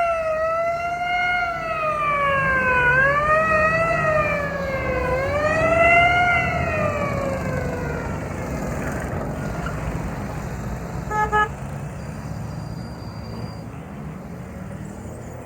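Ambulance siren passing by: its pitch drops as it goes past, then slow wails slide lower and fade away over about eight seconds, leaving engine and tyre rumble. A short horn toot comes about eleven seconds in, and the traffic noise then fades.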